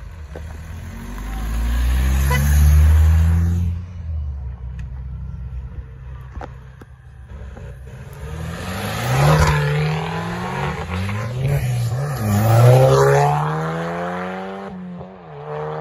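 Cars pulling away one after another under hard acceleration, their engines revving up with rising pitch. One loud pull-away comes in the first few seconds; a longer one later climbs, drops back at the gear changes and climbs again.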